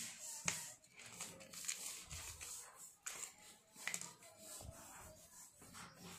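Faint handling noises: a few light clicks and taps as small objects, a stone and a plastic syringe needle cap, are picked up and handled on paper.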